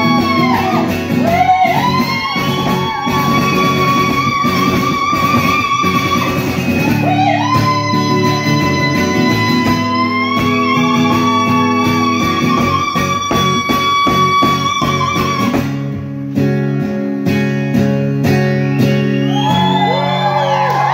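Live band music led by an amplified acoustic guitar. Over sustained chords, a singer holds long notes that scoop up into pitch with a slight waver, twice. The held notes drop out about three-quarters of the way through, leaving the guitar and band.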